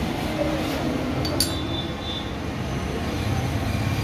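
Steady low background rumble with one sharp metal clink about a second and a half in, as small parts are handled at a motorcycle's front brake.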